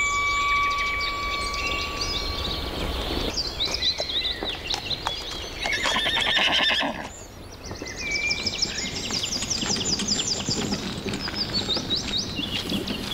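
Morning countryside ambience: many birds chirping, with rapid repeated trills. A louder pulsed, rasping animal call comes about six seconds in. Two steady high tones fade out in the first few seconds.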